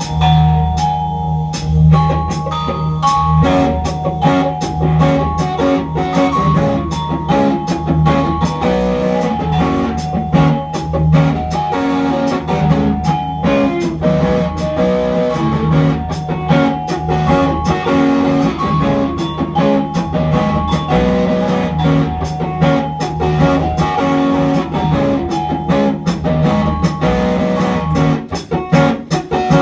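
Live electric guitar playing busy picked notes over a steady low drone, with frequent sharp percussive clicks.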